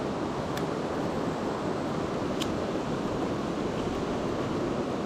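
Mountain stream rushing steadily over rocks, with two faint short clicks, one about half a second in and one near the middle.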